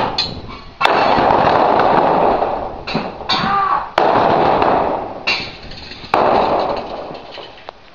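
Three sudden loud bangs, about a second, four seconds and six seconds in, each trailing off in a rushing noise over a second or two. A short wavering cry sounds between the first two.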